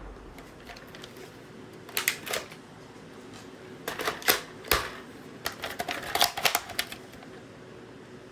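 Airsoft L96A1 bolt-action sniper rifle being worked by hand after a shot: sharp clicks and clacks of the bolt and action in three short groups, about two seconds in, around four seconds in, and again near six seconds.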